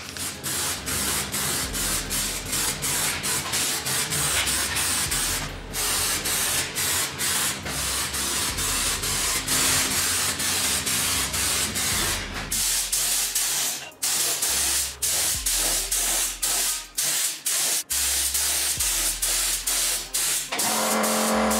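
Spray hissing in quick repeated bursts, cut off for a split second between them many times over; from about halfway through the breaks come deeper and a little farther apart.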